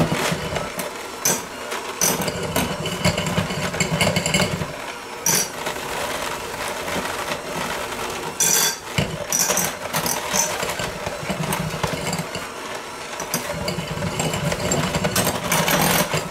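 Corded electric hand mixer running, its beaters shredding cooked chicken in a glass bowl. It gives a steady motor whir, with sharp knocks now and then as the beaters strike the glass.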